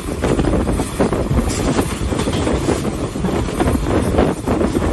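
Passenger train running on the rails, heard from on board: a steady rumble of wheels on track with loose, irregular clatter, and wind on the microphone.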